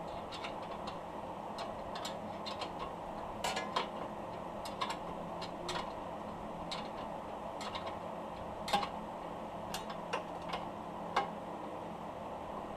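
Scattered, irregular metallic clicks and taps from hand tools working on the car's rear suspension bolts, over a steady background hum.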